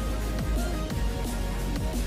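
Electronic background music with a heavy bass and a steady beat.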